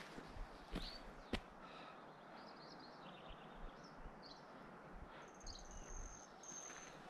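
Faint open-air meadow ambience with small birds giving short high chirps. A thin, steady high whistle comes in twice near the end. Two sharp clicks sound in the first second or so.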